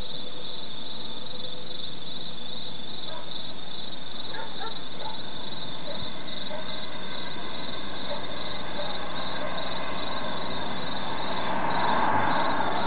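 Steady hiss of a thunderstorm, with a few faint bird chirps about four to six seconds in. Near the end a louder rushing sound builds.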